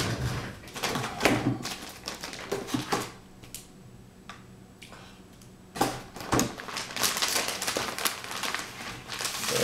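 Irregular clicks, taps and rustles of hands handling laptop parts, with the freed LCD screen panel being moved about. There is a quieter pause in the middle, then denser clicking and rustling near the end.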